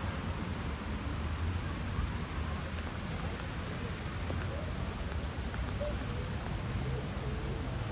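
Steady rain falling on a city street, an even hiss over a low, constant rumble.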